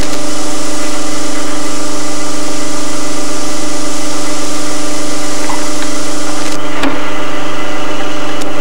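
Drill press motor running steadily, with a hiss as the bit drills rivet holes through a metal hinge held in a drilling jig. The hiss drops away near the end with a short click.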